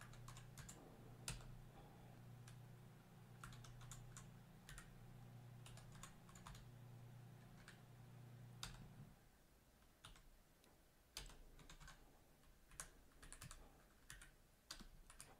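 Faint typing on a computer keyboard, irregular key clicks while code is entered. A low steady hum underneath stops about nine seconds in.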